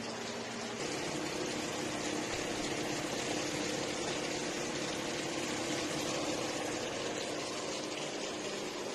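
Breaded cheese sticks frying in hot oil in a pan, with a steady, even sizzle. A faint steady hum joins about a second in.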